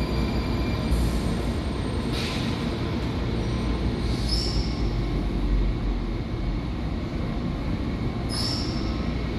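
DC Metrorail train rumbling into an underground station and slowing along the platform, with two brief high-pitched squeals as it slows, about four seconds in and again near the end.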